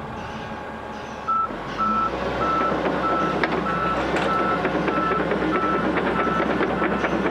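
Volvo ECR145EL excavator's engine picking up about a second in as it starts to track, while its travel alarm beeps steadily at a bit under two beeps a second, with some clanks from the machine.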